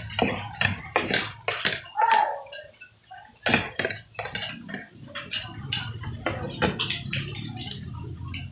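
Metal fork and spoon clinking and scraping against a plate: many short, irregular strokes as the last of the food is gathered up.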